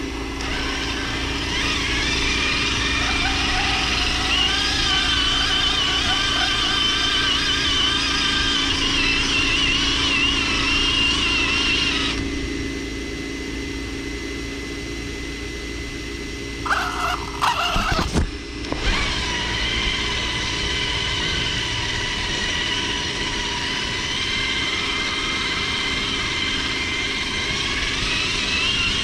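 Radio-controlled off-road truck's motor and gears whining as it drives over rough ground, the whine rising and falling with speed. Near the middle it drops away for a few seconds while the truck stops, then come a few short buzzes and a sharp knock before it drives on.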